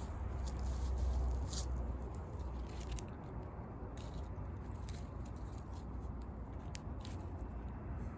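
Wood fire crackling, with occasional sharp pops over a low steady rumble that eases after about three seconds.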